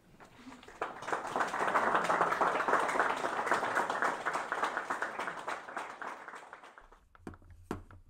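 Audience applause: many hands clapping together. It swells about a second in and dies away after about six seconds, and two single sharp claps or knocks follow near the end.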